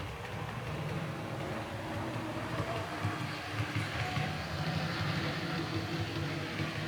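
Model train locomotive running along the layout track: a steady electric-motor hum with wheel and rail noise, growing somewhat louder over the first few seconds.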